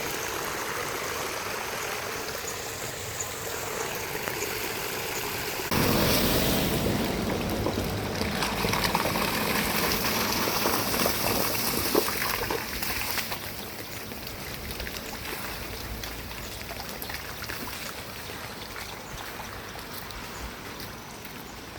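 Flowing floodwater: a steady rushing of water that gets suddenly louder about six seconds in and eases off again after about thirteen seconds.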